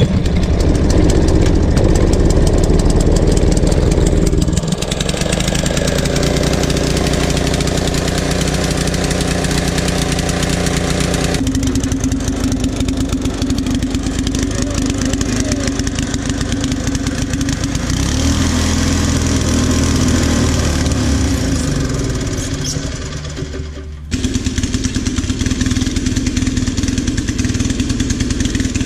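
Craftsman tiller's small gas engine, choked, catches right away and keeps running. Its note shifts abruptly a few times, and between about two-thirds and three-quarters of the way through its speed wanders up and down.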